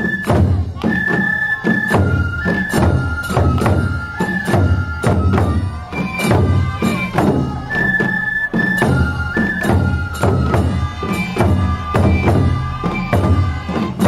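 Japanese festival taiko drumming: a row of small drums and a large barrel drum beat a steady rhythm under a melody of transverse bamboo flutes playing long held notes.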